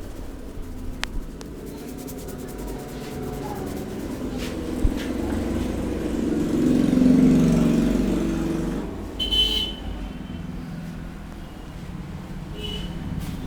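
Road traffic: a vehicle passes, its rumble swelling to a peak about seven seconds in and then fading, with a short high-pitched beep a couple of seconds later.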